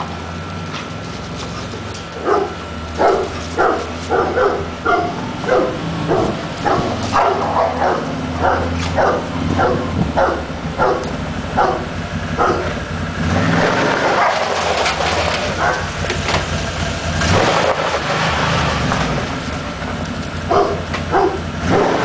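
Rottweilers barking in a regular run of short barks, about two a second, over a steady low hum. About halfway through the barking gives way to a rougher, continuous stretch of noise for several seconds, and short barks start again near the end.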